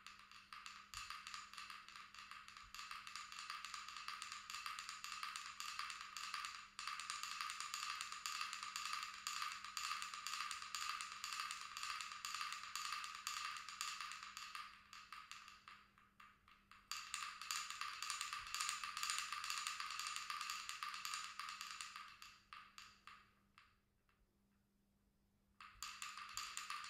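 Wooden pecking-chickens toy: the carved chickens' heads tap rapidly against the wooden board as the weighted ball below is swung round, making a dense, fast clatter of small wooden taps. It stops briefly twice in the second half, then starts again.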